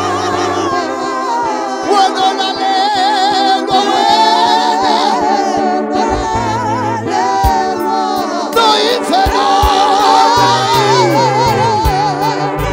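Gospel worship song sung by a lead voice and a group of singers, amplified through a PA. Held keyboard bass notes sit underneath, and a few sharp percussion hits come in from about the middle.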